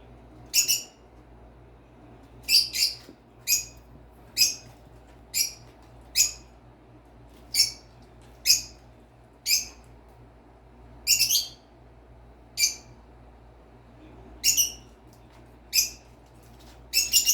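Pet birds chirping: short, sharp, high-pitched calls, about one a second, some in quick pairs and a rapid cluster near the end, over a faint steady low hum.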